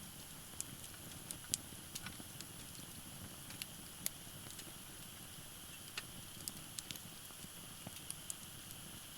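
Firewood burning in a Uniflame firewood grill fire pit, crackling with irregular sharp pops over a steady low hiss; the loudest pops come about one and a half and four seconds in.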